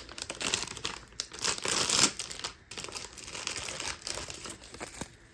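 Plastic wrapping crinkling as an MRE accessory packet is opened and its contents handled, loudest about two seconds in.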